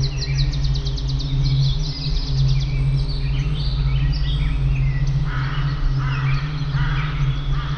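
Several songbirds singing and chirping, a fast trill in the first second or two, then assorted short chirps and calls, over a steady low drone.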